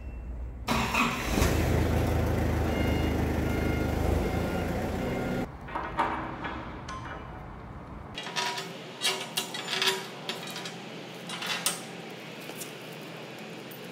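A machine running steadily with a low rumble for several seconds, then sharp metallic clinks and taps as steel plow bolts are fitted into the holes of a new steel bucket cutting edge.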